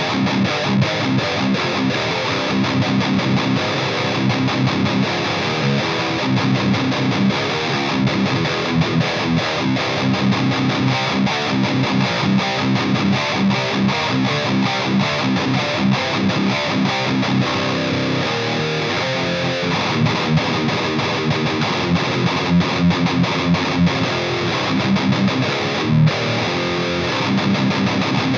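High-gain distorted electric guitar played in drop C tuning through an EVH 5150 III LBX amp head, mids turned up full, played continuously. The guitar has Seymour Duncan pickups.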